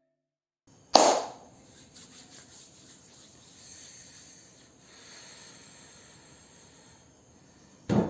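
A sharp knock about a second in, then low scraping and rubbing, and another knock near the end, as of things being handled and set down on a hard surface.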